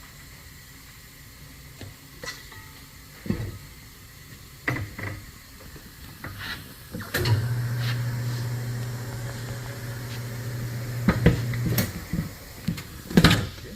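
Tire changer mounting an LT235/75R15 mud tire onto a wheel: a few metal knocks and clanks, then the machine's motor turning the table with a steady hum for about four and a half seconds, followed by sharp clanks near the end.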